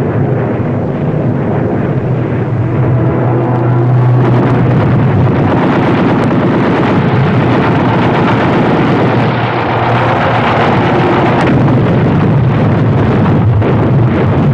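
Sound of a bombing raid: a continuous loud din of explosions over the steady low hum of aircraft engines, with no clear breaks.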